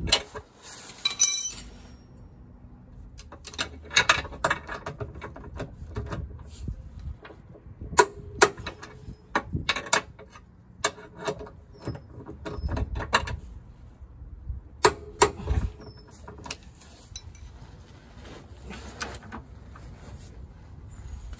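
Metal tools and fittings clinking and knocking in irregular strikes, with some ratchet-like clicking, as a tow bar's bolts and brackets are fitted and tightened.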